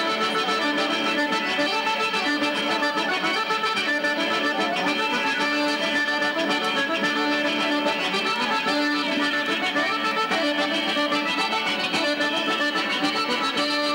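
Accordion playing a traditional Sardinian dance tune, continuous and at an even level, with many notes held over one another.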